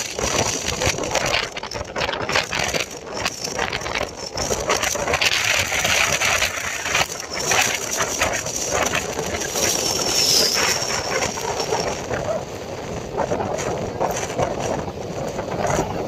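Surf breaking and washing up the beach, with gusts of wind buffeting the microphone. A thin steady high whine runs underneath and dips briefly about ten seconds in.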